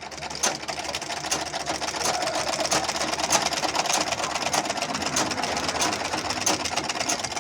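Butterfly sewing machine running steadily in a rapid, even stitching rhythm. It has just been oiled and threaded and is sewing well.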